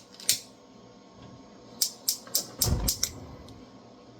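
Stove control knob being turned to light the burner under the pot: a single sharp click, then a quick run of sharp clicks at about four a second, with a low thump under the last few.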